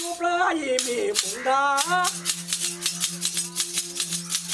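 A male folk singer chanting a Telugu devotional song to Rama over a steady drone from a one-string gourd instrument. About two seconds in, the voice stops and a fast, even clatter of hand-held wooden clappers carries on over the drone.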